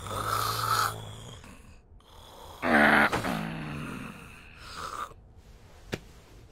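A sleeping man snoring with his mouth open, voiced for an anime: a rasping snore in the first second, then a louder one about two and a half seconds in that falls in pitch, and a weaker one near the end.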